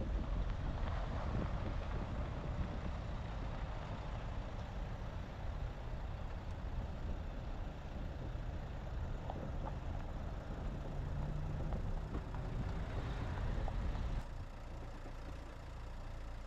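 Car engine and road rumble while driving, dropping to a quieter, steadier hum about fourteen seconds in.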